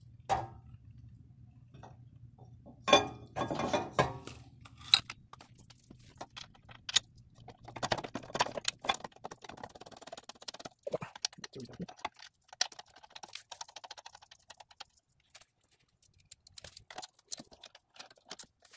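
Irregular metallic clinks, taps and rattles of a steel brake caliper bracket and its bolts being handled, fitted against the hub and threaded in by hand and tool, loudest in a cluster about three seconds in. A faint low hum runs beneath for the first half.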